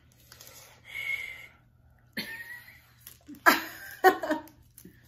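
A person coughing several times in short, sudden bursts, the loudest about three and a half seconds in.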